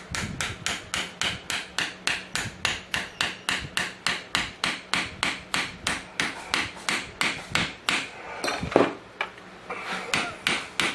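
Quick, light hammer taps, about three to four a second, driving a Dorman fuel line connector into 3/8-inch nylon fuel line held in a vise. After a short pause there is one louder knock, followed by a few more taps as the fitting goes all the way in.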